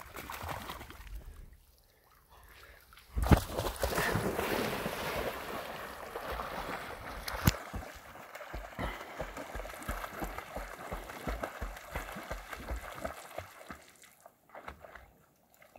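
Lake water splashing as a Vizsla plunges in and swims: a loud splash about three seconds in, a few seconds of churning water, then softer, steadier paddling sounds that fade near the end.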